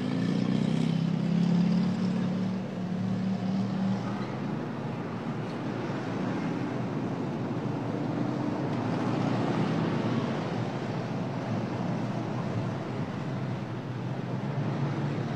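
Car engine and road traffic noise: a steady rushing hum, with a low engine drone that is strongest in the first few seconds.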